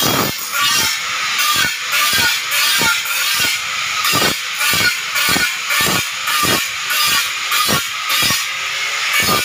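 Handheld electric glass edge grinder running along the edge of a glass sheet: a steady, high grinding hiss with a regular pulse about twice a second.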